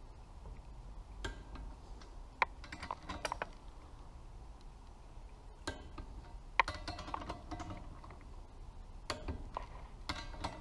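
Ratchet head of a torque wrench clicking in several short runs as the connecting rod cap nuts are tightened to torque spec, with a couple of sharper single clicks standing out.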